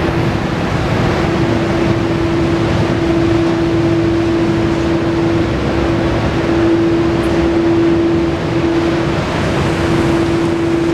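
Steady mechanical hum and rushing noise with one constant mid-pitched tone, like a fan or other machinery running.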